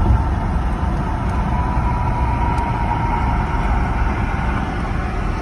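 Steady low rumble inside a 2015 Porsche Cayenne's cabin, engine and road noise coming in through a side window that is stuck open. A faint steady whine sits above the rumble.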